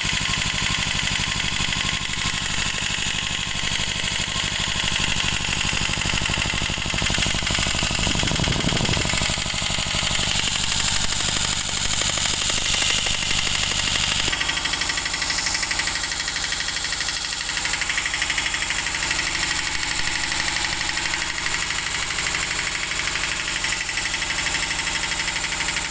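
Piaggio Ape three-wheeler's single-cylinder engine idling steadily with an even, rapid beat of firing strokes. The pitch rises briefly about eight seconds in.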